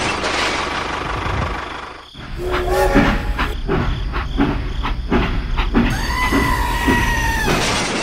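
Toy steam locomotive's train sound: after a steady rushing noise, a rhythmic chuffing at about three beats a second, with a short whistle about two and a half seconds in and a longer whistle of over a second near the end.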